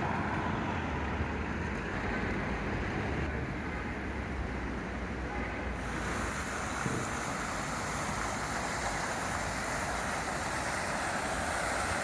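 Steady rumble and hiss of city street traffic, turning brighter in the upper range about six seconds in.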